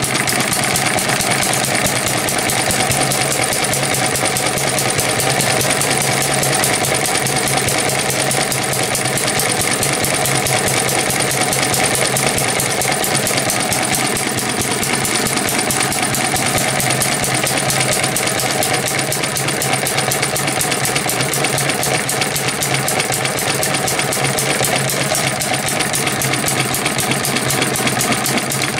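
Eachine ET1 (M90) model hit-and-miss gas engine running steadily with a rapid, even firing beat, belt-driving a small 12-volt DC motor used as a generator.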